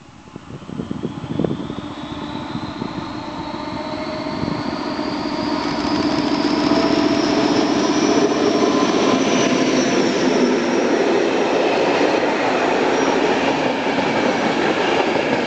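ČD class 754 diesel locomotive pulling away under power and passing close by, its engine growing louder over the first six seconds with a high whistle that rises in pitch, then the passenger coaches rolling past.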